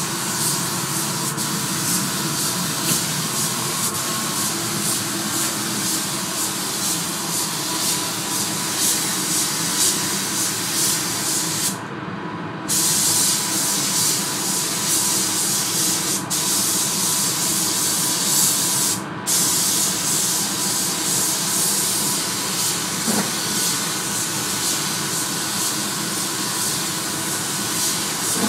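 Gravity-feed paint spray gun hissing steadily as compressed air atomises the paint. The trigger is let off twice partway through, once for about a second and once only for a moment, and the hiss cuts out while a steadier, lower rush of air carries on underneath.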